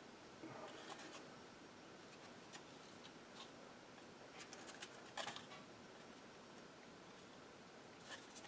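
Faint, scattered clicks and light scraping of small plastic parts being handled and pried at, as an HVAC control panel is taken apart; the sharpest click comes about five seconds in.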